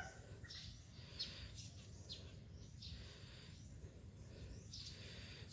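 Faint, high bird chirps: a string of short falling notes, roughly one or two a second, over a low steady rumble.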